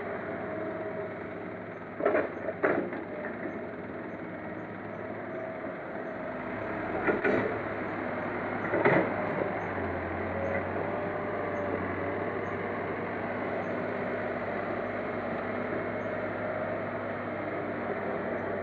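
Diesel engines of a hydraulic excavator and a loaded dump truck running steadily while soil is dumped into the truck's steel bed. Two sharp knocks come about two seconds in, and two more around seven and nine seconds in.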